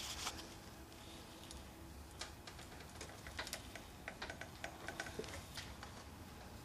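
Faint, irregular small clicks and ticks as fingers press and turn a thread-repair insert in a cylinder head's spark plug hole, most of them between about two and six seconds in.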